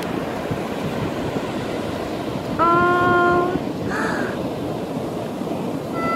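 Ocean surf washing steadily up the beach. Midway through, one drawn-out call at a steady pitch, about a second long, rises over the surf and is the loudest sound.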